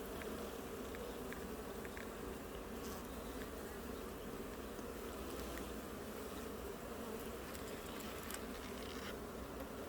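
Honeybees buzzing in a steady drone around an opened hive during an inspection, with a few faint light ticks.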